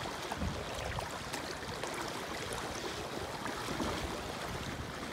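Shallow seawater sloshing and splashing around legs as people wade through it: a steady wash of water with small, scattered splashes.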